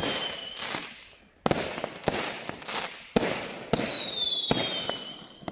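Fireworks going off: several sharp bangs, each trailing into crackle, with a high whistle gliding slowly down in pitch through the second half.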